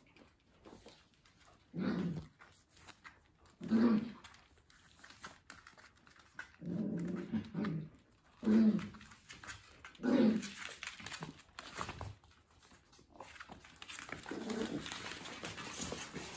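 Papillon puppies growling and whining in play: about six short calls spread through the stretch, with a longer noisy rustle near the end.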